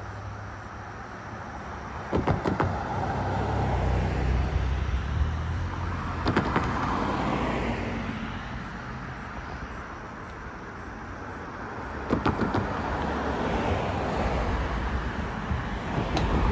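Cars driving across a railroad grade crossing, their tyres knocking over the rails in a quick cluster of thumps about two seconds in and again about twelve seconds in, with traffic noise swelling and fading as they pass.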